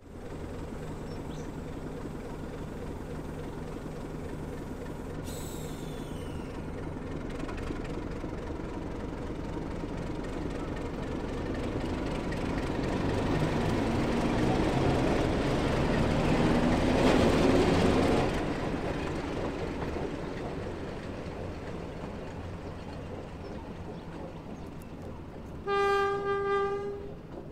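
Commonwealth Railways NSU-class diesel-electric locomotive NSU 52, its Sulzer six-cylinder diesel engine running as the locomotive moves past, growing louder to a peak about two-thirds of the way through and then fading. Near the end the locomotive's one-note horn sounds in two short blasts.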